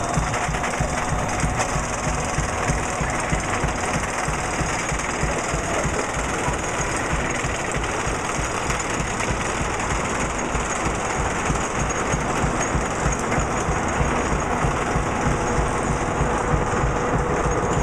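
Wooden kiddie roller coaster running, a steady rapid mechanical clatter and rumble heard from right beneath the track structure.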